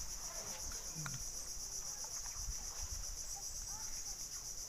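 Steady, high-pitched insect chorus with an even, rapid pulsing trill.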